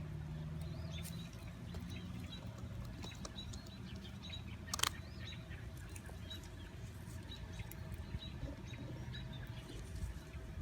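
Nestling birds peeping with many short, high chirps over a low rumble, with one sharp click about five seconds in.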